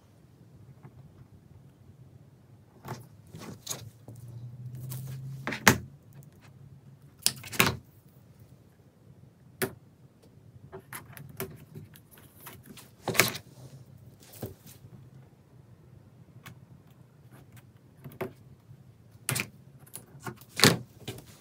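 Irregular clicks, taps and knocks of a plastic screen-printing frame and double-sided tape being handled on a work surface, with a longer steadier sound about four seconds in.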